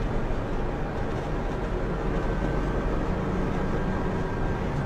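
Steady drone of a truck's engine and tyre noise, picked up inside the cab by a dashcam microphone.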